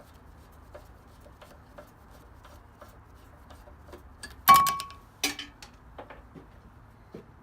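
Hand tools working on the screws of a cast-iron drill press head: small clicks and scrapes, then a sharp metal clank with a brief ringing tone about four and a half seconds in, and a second clank just after.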